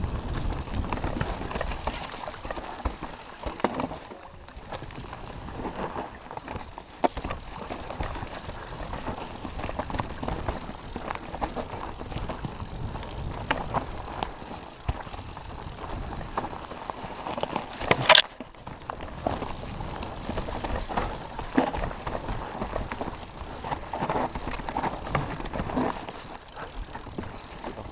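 Mountain bike riding down a rough dirt singletrack: tyres on dirt and stones and the bike clattering with many small knocks over the bumps, with one sharp, loud knock about 18 seconds in.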